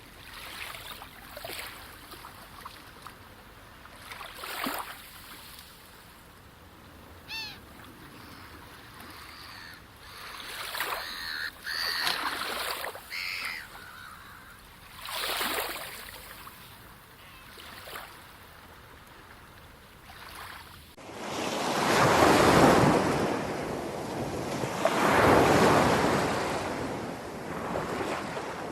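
Sea waves washing onto a shore, soft at first with a few short bird calls, then much louder surging waves from about two-thirds of the way in.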